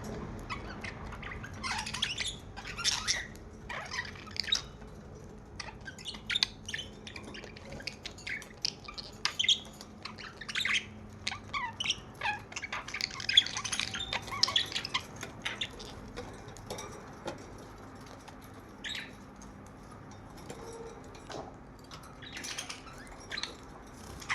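Budgerigar warbling and chattering: a long run of rapid chirps, squawks and short whistles, busiest in the first half and thinning toward the end.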